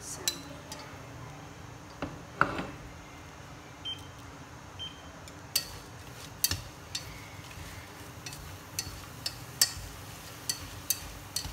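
Wooden chopsticks stirring Thien Ly flowers in a stainless steel pot, knocking against the metal in sharp, irregular clicks that come more often in the second half, with one louder ringing knock about two seconds in.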